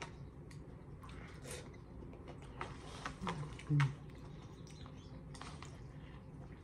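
Quiet eating sounds: scattered light clicks and taps from the utensil and food container while noodles and kimchi are chewed, with a short louder mouth sound a little past the middle.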